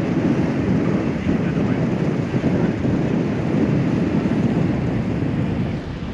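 Wind buffeting the microphone aboard a moving cruise boat, over the steady rush of the boat moving through the water. The noise eases a little near the end.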